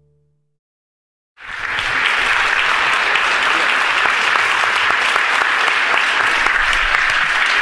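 Audience applauding: many hands clapping steadily, starting abruptly about a second and a half in after a short silence.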